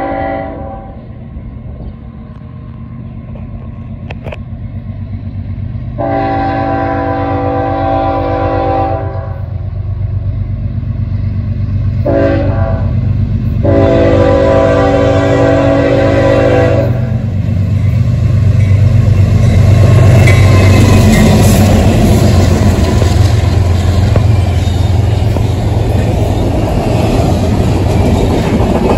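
A CSX freight led by a GE ES40DC sounds its multi-chime air horn for the crossing. One blast ends about a second in, then comes a long blast, a short one and a final long one. The train then passes close by: the locomotives' deep diesel rumble builds, followed by the rattle and clickety-clack of double-stack intermodal cars.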